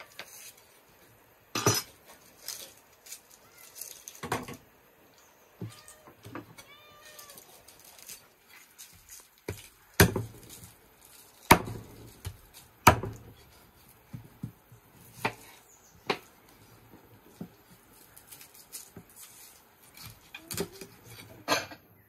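A knife chopping through raw chicken on a wooden board, making sharp knocks at irregular intervals. A short animal cry comes about seven seconds in.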